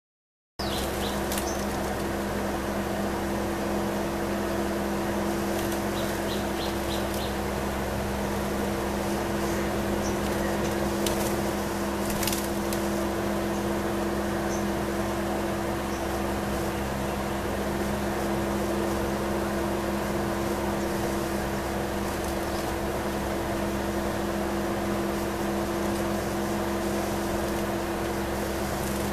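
A steady machine hum of two low tones over a constant hiss, with a few faint short clicks scattered through, including a quick run of four.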